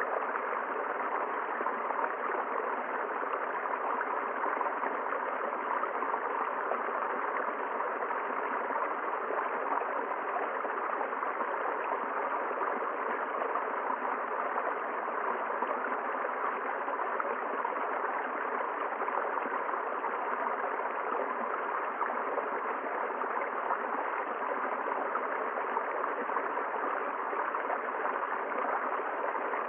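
River water rushing and splashing steadily over rocks, with no change in level.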